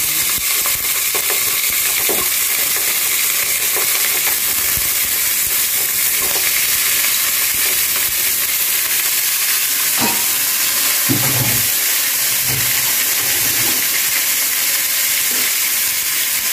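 Half-roasted chicken pieces sizzling steadily as they fry in a little hot oil with garlic in an aluminium pot.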